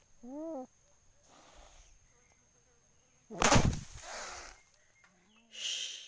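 A trapped domestic cat gives one short meow, rising then falling in pitch, near the start. It is followed by several bursts of noise, the loudest just past halfway with a heavy thump at its start.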